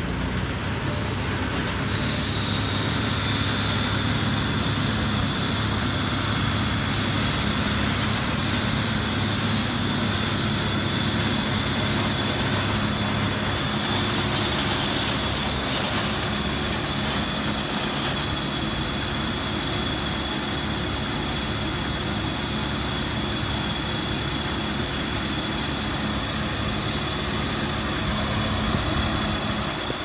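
New Holland TD5.90 tractor running steadily while it drives a Maschio round baler that is picking up straw. About two seconds in, a steady high whine joins the machine noise.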